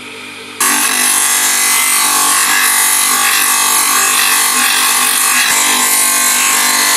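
A wooden sheath blank pressed against a motor-driven sanding disc: a loud, steady grinding hiss of abrasive on wood over the motor's hum. The sanding starts abruptly about half a second in.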